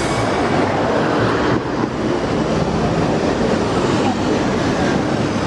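Steady city street traffic noise as double-decker buses, cars and a van drive past.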